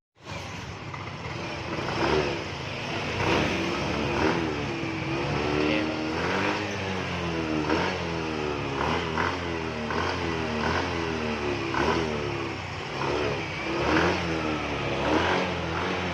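Yamaha Mio i scooter's single-cylinder engine, breathing through a stock Yamaha Aerox muffler, revved in repeated throttle blips, its pitch rising and falling about once a second.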